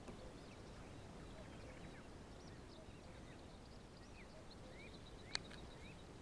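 Faint, scattered bird chirps over quiet outdoor ambience, with a single sharp click about five seconds in.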